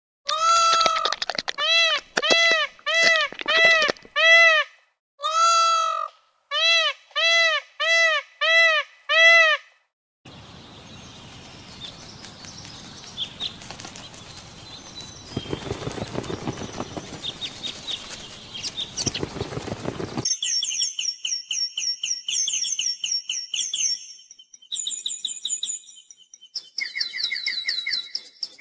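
Animal calls in three stretches. First comes a run of about a dozen evenly repeated pitched calls, each with many overtones, at roughly one or two a second. About ten seconds in, this gives way to a noisy rustling stretch with scattered clicks, and from about twenty seconds in there are high, rapid bird chirps.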